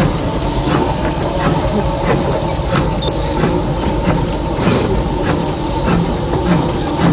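The E. P. Ripley, a 4-4-0 steam locomotive, running along the track, heard from inside its cab. There is a steady heavy rumble and rattle, with repeated sharp clicks about once or twice a second.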